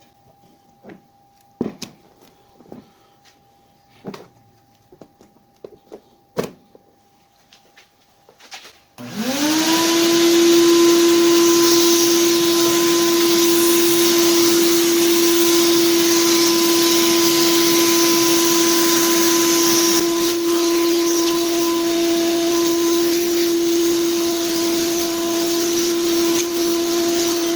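A few scattered clicks and knocks, then about nine seconds in an electric motor with a rush of air starts up, its whine rising quickly to a steady pitch and running on.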